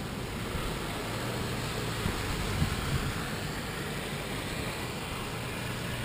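Steady wind and rain noise, with the low rumble of a car passing along the wet road through the middle.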